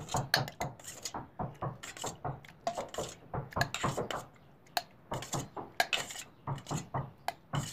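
Soaked figs being put one by one into a stainless-steel mixer-grinder jar: a string of irregular knocks and clinks against the steel.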